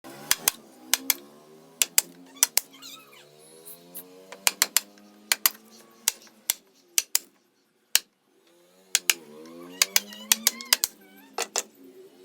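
Sharp, irregular tapping clicks, about two or three a second, over music with gliding tones; both cut out briefly about eight seconds in.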